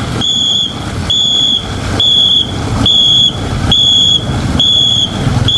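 A whistle blown in short, evenly spaced blasts, about one a second, all on the same high pitch: the stroke-pacing whistle of a Khmer ngo longboat crew during paddling practice.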